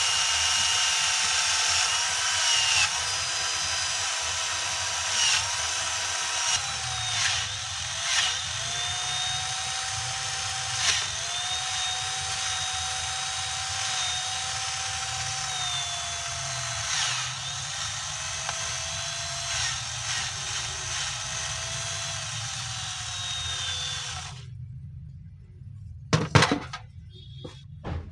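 Cordless drill spinning a long steel rod while a grey piece of stone held in pliers grinds against it, shedding grit. The motor's whine dips in pitch each time the piece is pressed on and sinks slowly overall. It stops near the end, followed by a few knocks.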